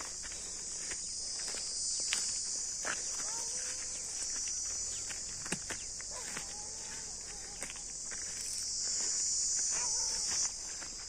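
Steady, high-pitched buzzing of insects, swelling a little and then dropping off near the end, with scattered footsteps and small snaps on the ground.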